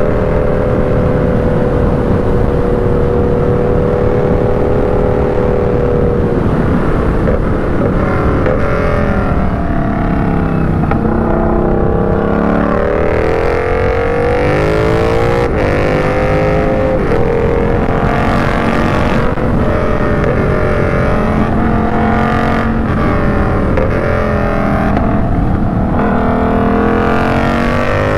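Yamaha MT-07 parallel-twin engine under way, with wind rush over the helmet: it holds a steady pitch for the first several seconds, then rises and falls again and again with throttle and gear changes.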